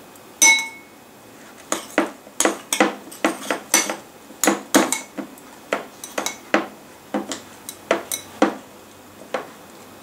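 Metal spoon knocking and scraping against a ceramic bowl while stirring slime with oil: a string of quick, irregular clinks, two or three a second, one clink about half a second in ringing briefly.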